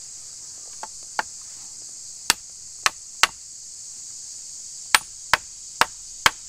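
Sharp wooden knocks of a wedge being tapped into the split end of a wooden hoe handle to spread the slot apart: two light taps, then a run of three and a run of four sharper knocks. A steady high insect hiss runs behind.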